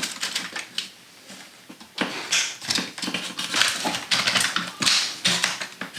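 Irregular clicks, knocks and short scraping or rubbing noises of objects being handled close by, thicker from about two seconds in.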